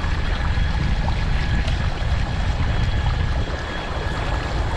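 Wind buffeting the microphone and water rushing along the hull of a moving fishing kayak, a steady, rumbling wash with no distinct events.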